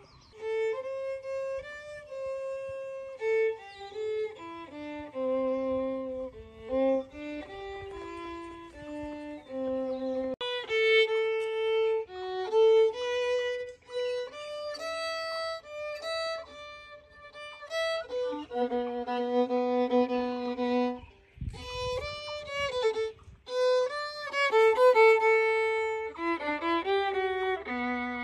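Solo violin playing a slow melody, one line of held and moving notes with the odd double stop. The playing breaks off briefly with a low bump about two-thirds of the way through, then carries on.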